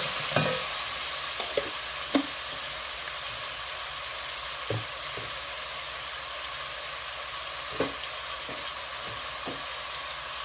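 Chopped onion and ginger-garlic paste sizzling in hot oil with whole spices in a metal pan. A wooden spatula stirs and knocks against the pan a few times.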